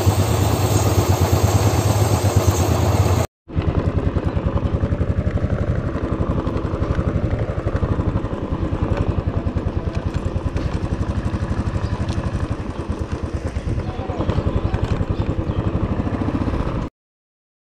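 Royal Enfield motorcycle's single-cylinder engine running with an even, rapid thump as the bike is ridden. Before a short break about three seconds in, a louder low hum with hiss.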